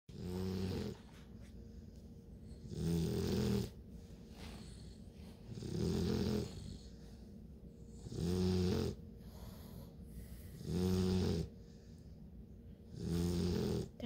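A nine-week-old Bluetick Coonhound puppy snoring loudly in its sleep: six low snores, each under a second long, coming about every two and a half seconds.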